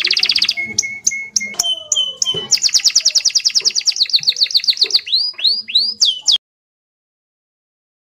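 Greater green leafbird (cucak hijau) singing: fast high trills alternating with clear level whistles and downward-slurred notes. It cuts off abruptly about six seconds in.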